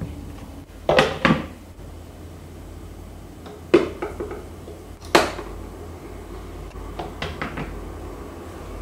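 Kitchen things being handled and set down: a handful of short sharp knocks and clacks, the loudest about a second in and around four and five seconds in, with lighter taps near the end, over a steady low hum.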